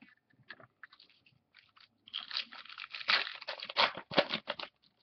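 Trading-card pack wrapper being torn open and handled: a few faint clicks, then from about two seconds in a dense run of crinkling and crackling.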